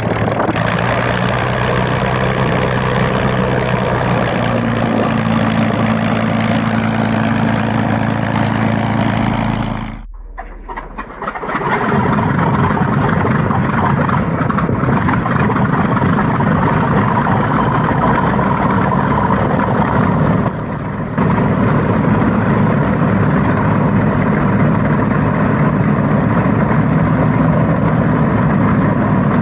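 Aircraft engines running loudly. First comes a steady, even-pitched engine note. About ten seconds in it drops away briefly and is followed by a rougher, noisier engine run that carries on to the end.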